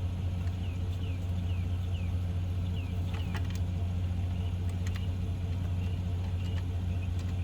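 An engine idling steadily with a low, even hum. A few sharp light clicks come about three seconds in and again near five seconds, and short high chirps repeat in the first second.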